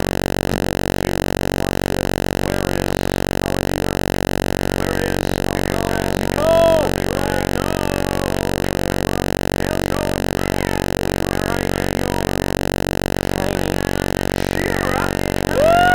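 Loud steady electrical-style buzz with many overtones, unchanging throughout. About six and a half seconds in, a short pitched sound rises and falls above it.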